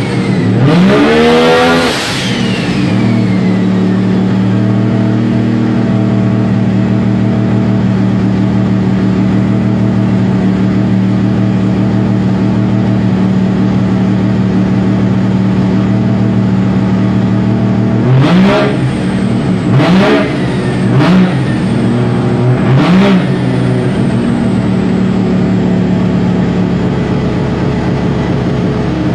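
Mazda 20B three-rotor rotary engine running on E85, revved once at the start and dropping back to a steady idle. About 18 seconds in it takes four quick throttle blips, then idles again, with another rev starting right at the end.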